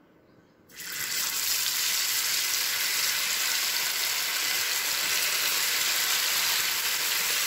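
Masala-coated anchovies going into hot oil in a pan: a sudden loud sizzle starts under a second in, then holds as steady deep-frying.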